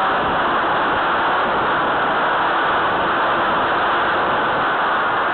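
Steady, dense rushing hiss of airflow and electric motor noise picked up by the small onboard camera on a Firebird Stratos RC plane in flight.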